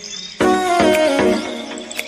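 Instrumental background music, with a melody line that falls in pitch about halfway through.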